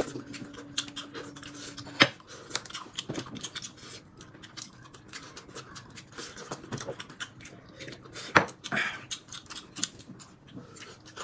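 Eating at a table: scattered light clicks and taps of chopsticks against ceramic bowls and peanut shells being cracked open by hand, with two sharper knocks about two seconds in and about eight seconds in.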